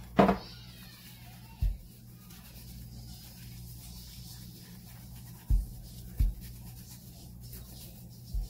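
Hands scrubbing shampoo lather into a small dog's wet fur: a soft scratchy rubbing over a low steady hum, broken by a few dull thumps, the loudest just after the start.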